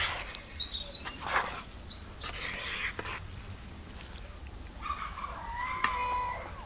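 Small birds chirping and tweeting, with a few sharp clicks and knocks; near the end a longer, steadier bird call.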